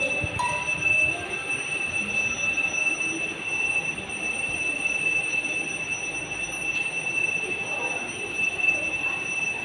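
Steady high-pitched whine that holds one pitch throughout, over a hiss of background noise.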